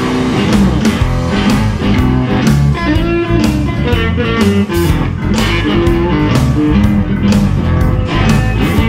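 Electric guitar playing a rock riff over a backing track with a steady beat and a bass line.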